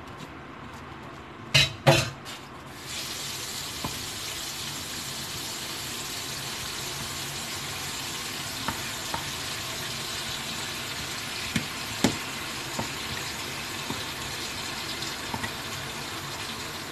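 A couple of sharp metal clanks, then about three seconds in a steady sizzle of food frying in hot oil starts and carries on, with occasional light clicks of a utensil against the pan.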